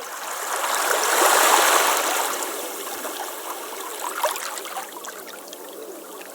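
Sea waves on a stone beach: a wave surges in, loudest about a second and a half in, then drains back through the stones with a trickling wash and many small clicks.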